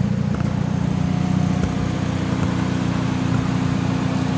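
Hyundai Elantra N's 2.0-litre turbocharged four-cylinder engine idling steadily.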